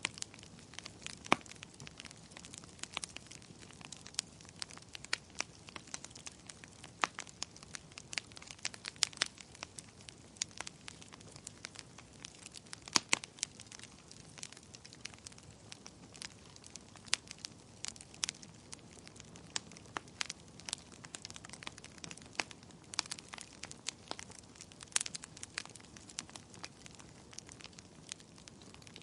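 A fire crackling: irregular sharp pops and snaps of varying strength over a soft, steady hiss, with a few louder pops about a second in and near the middle.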